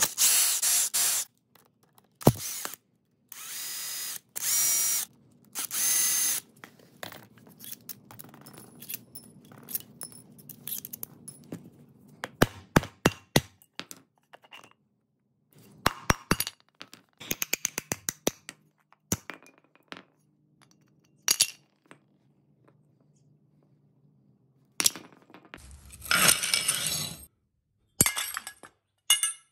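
An AC condenser fan motor being taken apart: several short bursts of a power driver backing out its long through-bolts, then sharp metal clicks and clanks as the end plate, rotor and steel casing are pulled apart, with a longer scraping burst near the end.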